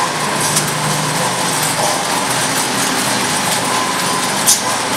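Z-type bucket elevator running, with a steady mechanical noise from its drive and chain-mounted stainless steel buckets. A couple of sharp metallic clinks, the loudest near the end.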